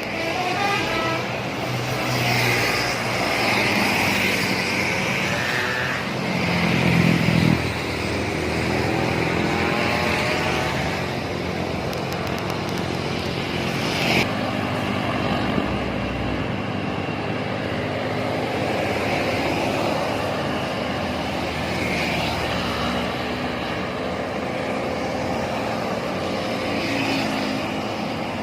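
Highway traffic passing close by: heavy vehicles such as buses and trucks go past one after another, their engine and tyre noise rising and falling as each passes. The loudest pass, a low rumble, comes about a quarter of the way in, and a horn sounds briefly near the start.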